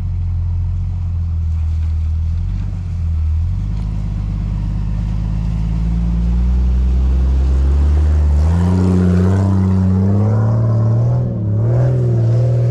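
Off-road 4x4's engine running at low revs, then revving up about two-thirds of the way through and wavering as the throttle is worked.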